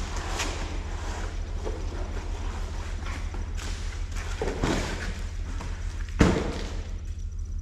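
Cardboard packaging of a solar panel scraping and rustling as it is handled and opened and the panel is slid out. There is a dull thud about four and a half seconds in, and a louder thud just after six seconds as the emptied box falls flat onto the concrete floor.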